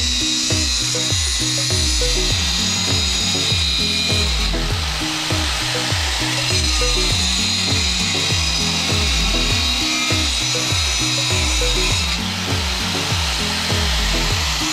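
Angle grinder with a cutting disc whining as it cuts through 4-inch orange PVC drainage pipe, over background music with a steady beat.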